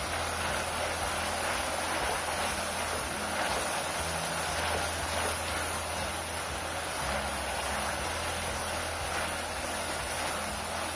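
Chicken pieces sizzling in hot liquid in a wok, with a steady rain-like hiss, while a nylon slotted spatula stirs them and now and then scrapes against the pan.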